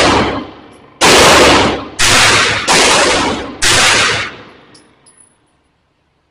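Four gunshots from a semi-automatic firearm, fired one at a time about a second apart, each with a long echoing tail, then silence for the last second.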